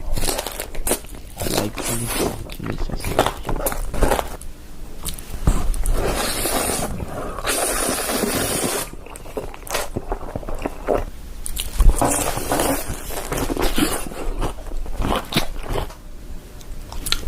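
Close-miked crunchy bites and chewing of food, mukbang style, with a longer crackling stretch about seven seconds in.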